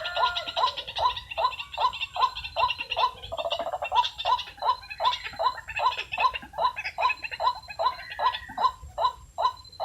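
White-breasted waterhen calling: a long, even run of harsh repeated notes, about three a second, with a second overlapping voice near the start and again about three seconds in.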